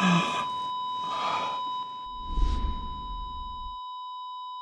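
Heart-monitor flatline: one steady, continuous high electronic beep tone. About halfway through a low rumble with a whoosh comes in, and it cuts off near the end while the tone holds.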